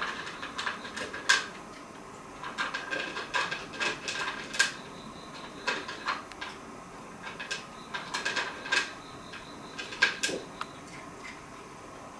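A cat eating from a food bowl: irregular crunching and sharp clicks of food and teeth against the bowl, in short clusters with brief pauses.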